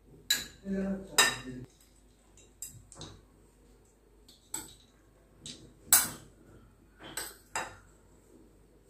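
A metal spoon clinking and scraping against bowls as chaat is scooped from a large bowl into a small one: a scattered series of sharp clinks, the loudest about six seconds in.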